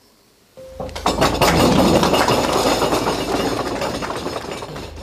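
Audience clapping, starting about a second in, full for a couple of seconds, then fading. Low pulsing music begins underneath just before the clapping and carries on.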